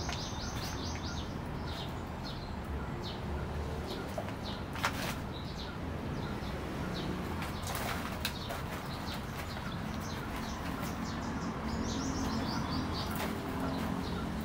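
Small birds chirping in quick repeated runs of high notes, near the start and again late on, over a steady low outdoor hum. Scattered light clicks and rustles come from a Yorkshire terrier nosing through a heap of sacks, tins and broken wood.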